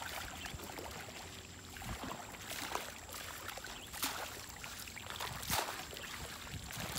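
Water splashing and running off cast nets as they are gathered in and lifted from shallow river water, with a few sharper splashes.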